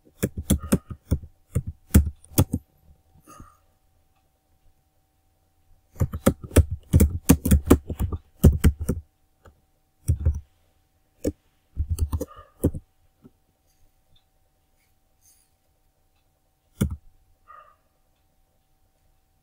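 Computer keyboard typing: quick runs of keystrokes with pauses between them, then a single keystroke near the end.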